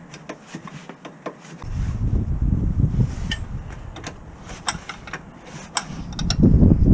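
A run of light metallic clicks and knocks, like tools or parts being handled, over a low rumble that comes in about a second and a half in and grows louder near the end.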